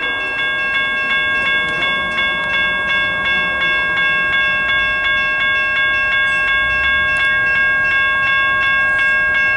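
Railroad grade-crossing bell ringing steadily, struck about three times a second, signalling that the gates are down for an approaching train. A low rumble swells under it around the middle.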